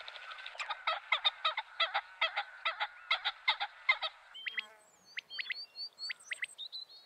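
A flock of geese honking in a fast, overlapping run of calls for about four seconds, then thinning to sparser, sharper single calls and short high chirps.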